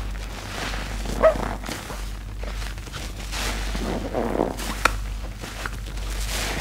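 Soapy sponge being squeezed and kneaded by rubber-gloved hands in a basin of foam: wet squelching and crackling suds, with a short squeak about a second in and a sharp squelch near five seconds.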